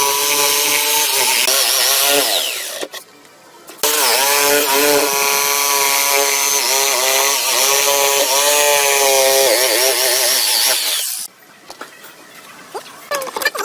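Electric power tool motor whining as it cuts wood, its pitch dipping each time it bites under load. It stops about two and a half seconds in, starts again a second later, and cuts off a few seconds before the end, leaving a few light knocks.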